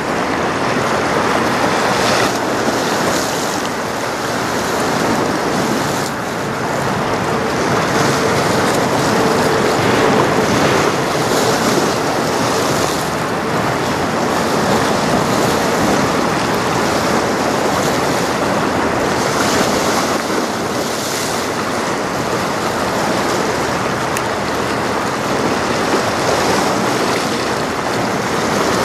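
Choppy lake water washing and splashing, with wind buffeting the microphone: a steady rushing noise that swells and eases in gusts.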